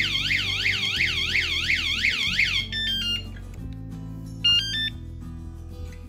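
Motorcycle anti-theft vibration alarm sounding a loud, piercing warbling siren, about three sweeps a second, that stops about two and a half seconds in and is followed by a short falling three-note chime, the alarm being switched off from its remote. About four and a half seconds in the unit gives a second brief run of beeping notes.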